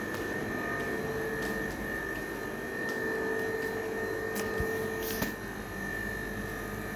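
Steady machine hum with a thin held whine over it, and a few brief clicks.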